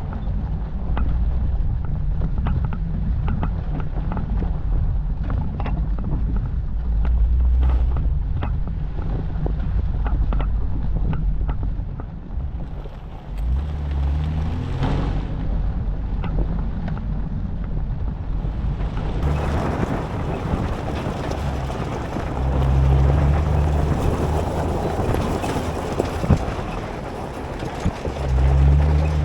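Jeep driving on a dirt forest road: a low, steady engine drone with frequent small clicks and knocks of gravel and bumps. About two-thirds through, a louder hiss joins and runs on to the end.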